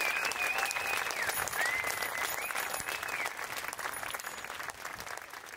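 Audience applauding, dying away towards the end. A few high, wavering tones ride over the clapping in the first three seconds.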